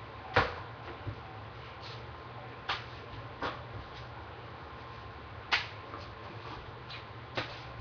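A small ball knocking against a handheld calculator and hands as it is bounced and caught: about six sharp taps spaced irregularly, the first the loudest.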